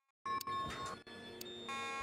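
Fire alarm evacuation tone from a voice-evacuation speaker system: steady electronic alert tones start after a brief silence, dip briefly about a second in and resume near the end, with a few sharp clicks.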